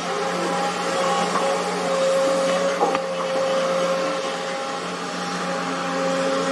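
Excavator's diesel engine and hydraulics running steadily, with a humming whine that swells and eases as it works and a single knock about three seconds in.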